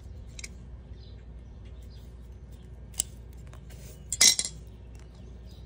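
Small handling noises while stripping a heavy-gauge battery cable: scattered light clicks, a sharp click about three seconds in, and a short burst of metallic clinks and scrapes a little after four seconds.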